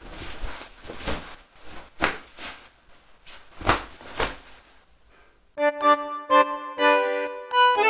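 Fabric swishing and rustling in several separate strokes as a cord is pulled around kimono sleeves to tie them back. About two thirds of the way in, instrumental theme music with sustained chords starts.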